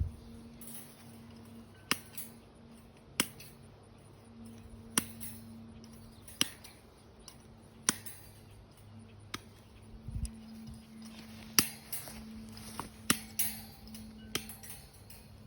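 Galvanized wire fencing being cut strand by strand with cutters: sharp metallic snips, one every second or two, about a dozen in all.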